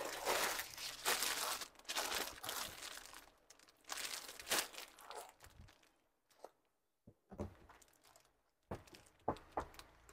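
Sarees being handled: crinkling and rustling for the first few seconds and again a little later, then scattered soft clicks and brief rustles toward the end.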